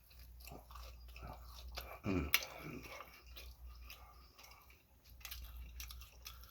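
Close-miked chewing of pizza: soft mouth clicks and smacks, with a louder click a little after two seconds.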